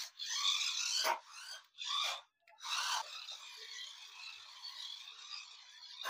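A small battery-powered RC buggy drifting, its tyres scraping and skidding across a hard floor in a series of short bursts. After about three seconds the noise settles into a steadier, fainter hiss as the car keeps running.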